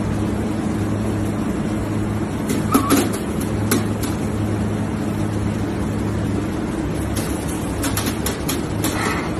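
Steady low machine hum over a noisy hiss, with a few light clicks and knocks about three seconds in and again near the end, and one short squeak about three seconds in.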